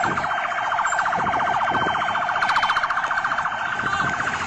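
An electronic siren sounding continuously with a fast, even pulsing warble.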